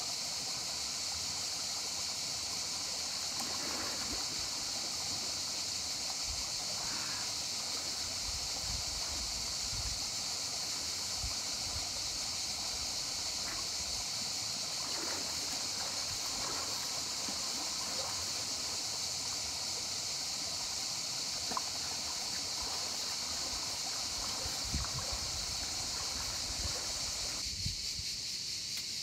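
River water running in a rocky pool, with soft splashes of a person wading and swimming, over a steady high hiss. Near the end the water sound drops away.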